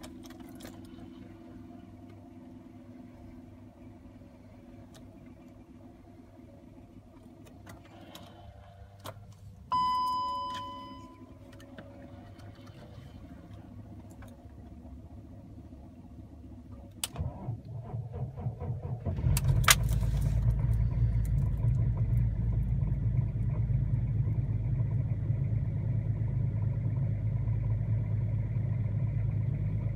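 BMW X5 E53's 3.0-litre straight-six diesel cold-started at −19 °C. After a quiet wait with the ignition on and a single chime about ten seconds in, the starter cranks for a couple of seconds. The engine catches and runs steadily at a raised cold idle of about 1,000 rpm.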